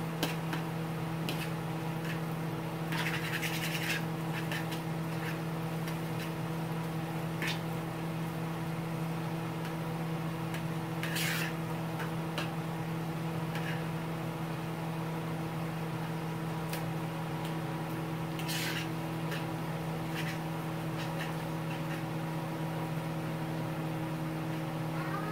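A steady low electrical hum, with scattered soft crackles and pops from pork chops and onions cooking in a cast-iron skillet.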